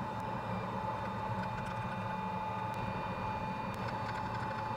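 Steady low background hum with a thin constant whine, no distinct events.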